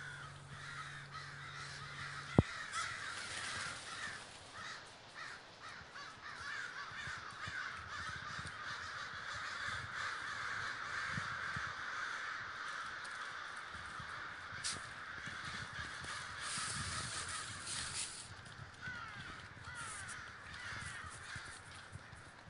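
A large flock of American crows cawing all at once as it gathers, many calls overlapping without a break. A single sharp click about two seconds in.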